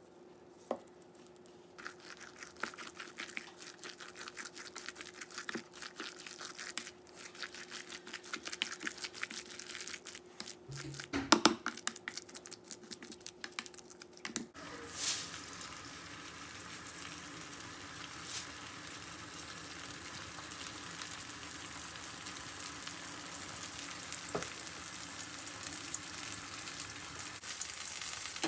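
A spatula stirring and mashing a wet tofu and vegetable pancake batter in a stainless steel bowl, with a few sharp knocks against the bowl a little over a third of the way in. About halfway through this gives way to the steady sizzle of the pancakes frying in a pan.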